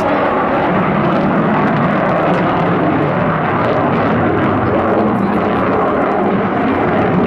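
F/A-18 Super Hornet's twin General Electric F414 turbofan engines, heard as a loud, steady jet roar as the jet flies its display manoeuvre.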